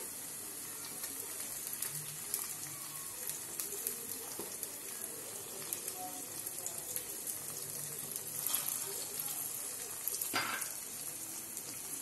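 Hot oil with fried onion and garlic sizzling and crackling in a pan as halved tomatoes are laid into it one by one, with a couple of sharper crackles later on.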